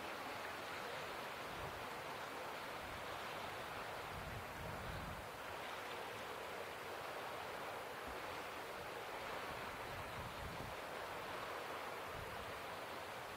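Steady rushing of strong wind, with low gusts buffeting the microphone a few times.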